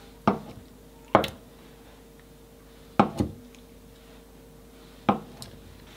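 Chef's knife slicing through soft tofu and knocking down onto a wooden cutting board: four sharp knocks, the third followed at once by a second tap.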